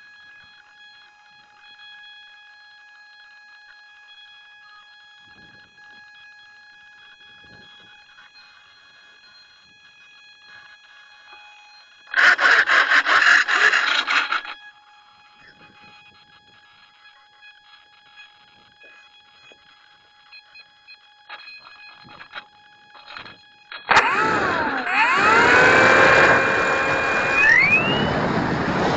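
Brushless electric motor and propeller of an E-flite Carbon-Z Cessna 150 RC plane spinning up near the end, its whine dipping and then rising in pitch as the throttle opens. Before that there is a faint steady electronic whine of several tones, broken about halfway by a loud burst of noise lasting about two seconds.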